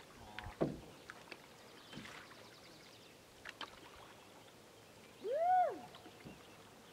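Faint sounds of canoes being paddled on a calm lake: light water splashes and scattered soft knocks. About five seconds in, a single short call rises and falls, the loudest sound.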